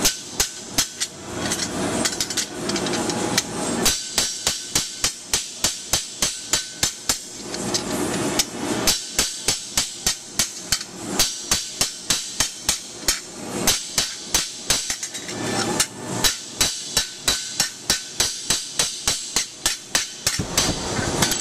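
Steel hammer striking the sheet-steel brim of a burgonet helmet over an anvil, a quick run of light, even, ringing metal-on-metal blows at about three a second, the small taps used to move sheet metal a little at a time.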